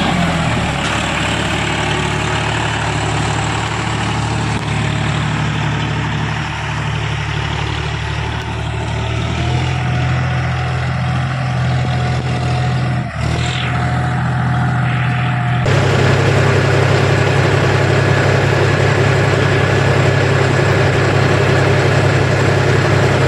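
John Deere 5045 D tractor's three-cylinder diesel engine running steadily under load, pulling a loaded trailer. About sixteen seconds in the sound switches abruptly to a louder, steadier engine drone.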